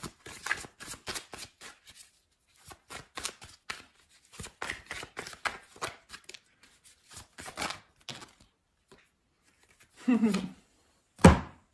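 A deck of cards being shuffled by hand: a rapid run of light clicks in several spells, with short gaps between them. Near the end comes a brief vocal hum, then a single thump.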